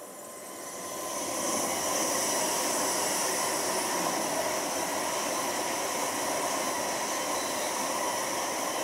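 Deutsche Bahn ICE high-speed train passing at speed: a rush of wheel-on-rail rumble and air noise that builds over the first second and a half, then holds steady as the long line of carriages goes by.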